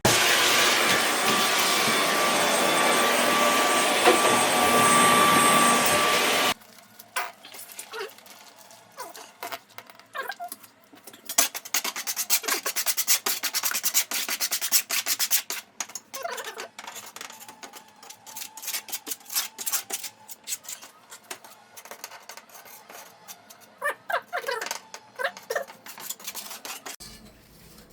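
Floor-repair work: a machine runs loudly and steadily with a few whining tones, then cuts off abruptly about six seconds in. After that come intermittent scraping and rubbing noises in flurries, typical of spreading adhesive or handling wood floor boards.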